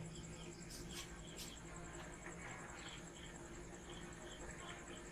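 Faint insect chirping, an even pulse about three times a second, with two faint sharp clicks about a second in.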